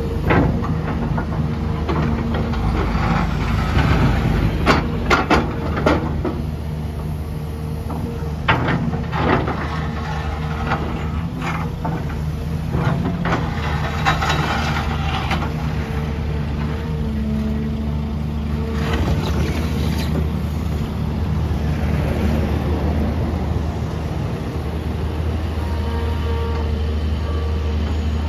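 XCMG XE265CT excavator's diesel engine running steadily, with clanks and rattles from the digging and loading, heaviest a few seconds in, again about nine seconds in and around the middle.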